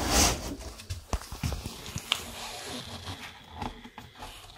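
Handling noise in a snake terrarium: scattered light knocks, clicks and rustles as a hand moves a plastic flowerpot over the substrate, ending on a louder thump.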